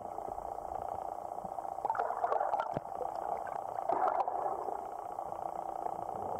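Muffled underwater noise picked up by a camera submerged in a lake, with two swells of gurgling water about two seconds apart.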